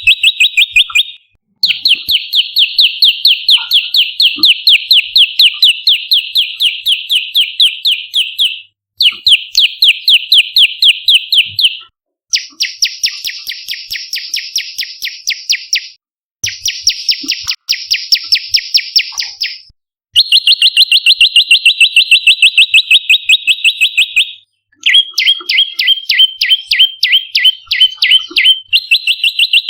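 Prenjak lumut calling in rapid, evenly repeated sharp chip notes, several a second, in long runs broken by brief pauses. Two runs midway are higher and buzzier, a fast trill, and near the end the notes shift lower and break into an uneven stutter.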